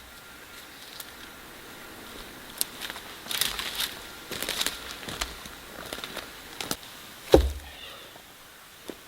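Wood and brush being handled, making irregular crackles and knocks, with one heavy thump about seven seconds in.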